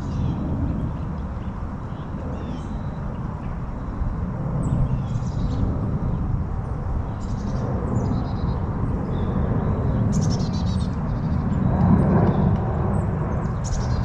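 Steady low rumble that grows louder toward the end, under short high-pitched bird chirps scattered through it.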